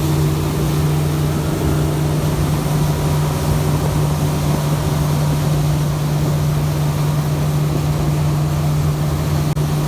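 Motorboat engine running at a steady speed, a constant low drone under an even rush of noise.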